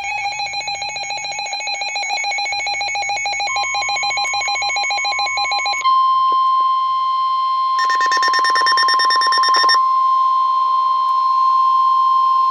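Weather-radio alert: rapid pulsing electronic beeps, joined about three and a half seconds in by the steady 1050 Hz NOAA Weather Radio warning alarm tone, which then holds steady. A second burst of rapid beeping sounds over the tone about eight seconds in.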